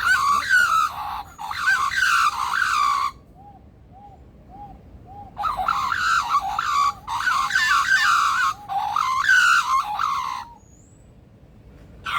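Superb lyrebird giving loud mimicked calls: two long bouts of fast, looping, rising-and-falling notes, with a run of soft, evenly repeated low notes, about two a second, between them. It goes quiet near the end.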